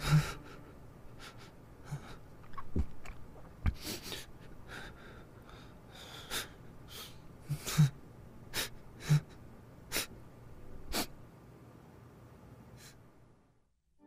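A man's shaky breathing while crying: many short sniffs and sharp intakes of breath at irregular intervals, with a few brief voiced sobs, dying away to silence just before the end.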